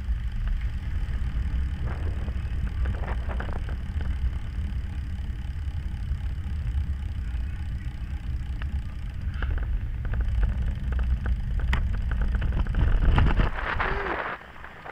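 Wind buffeting the microphone of a camera riding along on a road bike, a steady low rumble with scattered clicks and rattles; the rumble drops away near the end.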